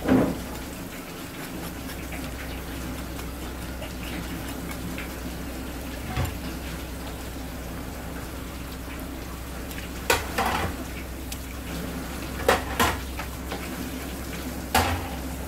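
Water running steadily from a tap onto a plastic cutting board and a fish being cleaned under it, with about six sharp knife knocks against the board and bone as the spotted sea bass is cut: one about six seconds in, pairs about ten and twelve and a half seconds in, and one near the end.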